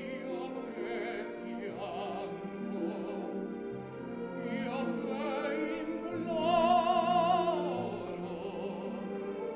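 Operatic singing with a wide vibrato over steady sustained tones, played back from an original, unrestored reel-to-reel tape recording. A loud, high held note about two-thirds of the way through is the loudest part.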